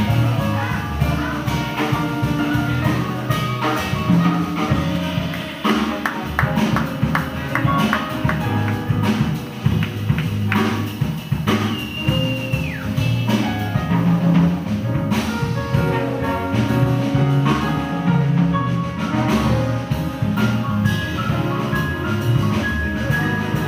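Live jazz band playing: a horn section of saxophones, trombone and bass clarinet over piano, double bass and drums.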